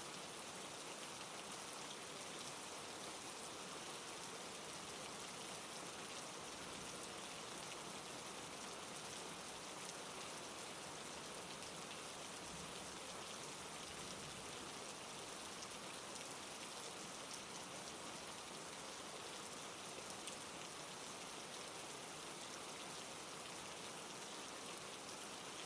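Steady rain falling: an even hiss of rain with fine patter of drops, unchanging throughout.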